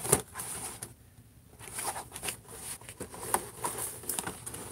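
Cardboard action-figure boxes with clear plastic windows being handled and shuffled, giving scattered taps, clicks and plastic crackle, with a brief lull about a second in.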